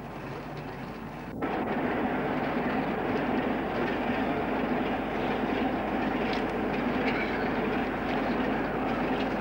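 Steady mechanical rumble with a low hum, starting abruptly about a second and a half in after quieter hiss.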